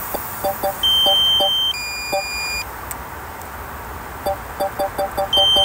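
The DJI Mini 3 Pro's controller sounds its low-battery warning: rapid short beeps, about five a second. About a second in, and again near the end, a louder, longer high-pitched two-note tone steps down in pitch.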